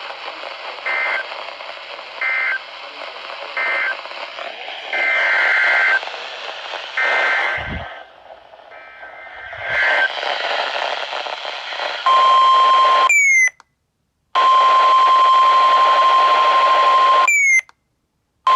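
NOAA Weather Radio alert over a static-laden signal: a run of short buzzy two-tone data bursts (the SAME header), then the steady 1050 Hz warning alarm tone that marks a new warning. The tone cuts out completely twice, each time just after a quick falling chirp.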